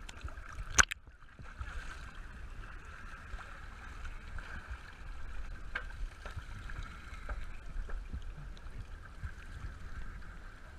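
A diver climbs a boat's metal boarding ladder out of the sea, heard through a waterproof action-camera housing. There is one sharp knock about a second in, then scattered light knocks, water sloshing and a steady hum.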